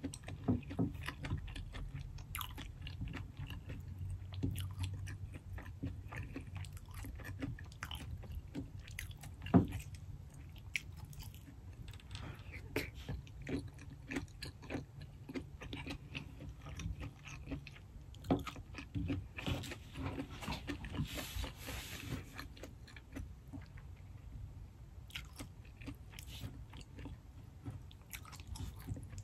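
Close-miked chewing and biting of seafood-boil shrimp and mussels: steady wet mouth sounds with many small clicks, and a louder stretch of noisy smacking about two-thirds of the way through.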